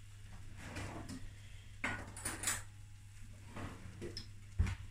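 A few light clinks and scrapes of a metal utensil against a stainless-steel frying pan as slices of spiced beef are picked out, with one louder knock near the end.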